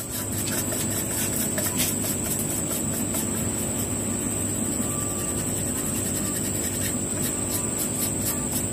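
A brush scrubbing dust and grime off a Stihl MS 180 chainsaw's body in quick repeated strokes, over a steady low hum and a continuous high insect drone.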